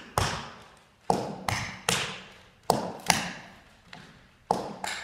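Tap shoes striking a wooden floor: about eight sharp taps in uneven groups of two and three, each with a short echo.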